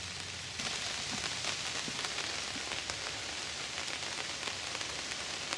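Steady rain falling on a tarp overhead, heard from beneath it: an even hiss with many small drop ticks on the fabric. It becomes brighter and a little louder about half a second in.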